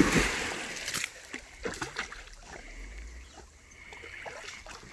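A Labrador retriever jumping into a pond with a loud splash right at the start, the splash noise dying away over about a second, followed by quieter small splashes and drips as the dog swims off.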